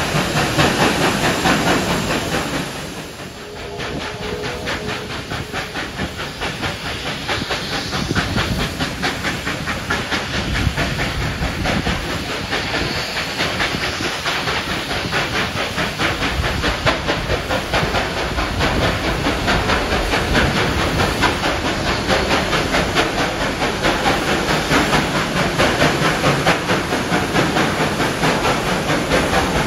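Steam locomotive 3801 working hard up a steep grade: a rapid, steady stream of exhaust beats with steam hiss and carriage wheels on the rails. It is heard from a following carriage, echoing inside a tunnel at the start and dropping briefly about three seconds in as the train comes out.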